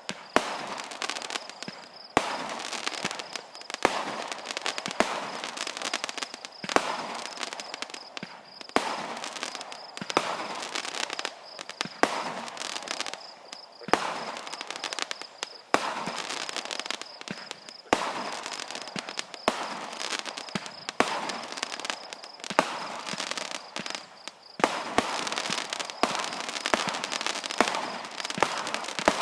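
Fireworks going off: sharp bangs every second or two, with crackling in between.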